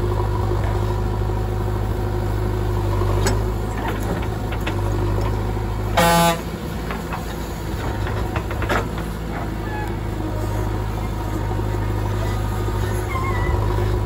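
JCB 3DX backhoe loader's diesel engine running steadily while it digs, with one short vehicle horn blast, the loudest sound, about six seconds in.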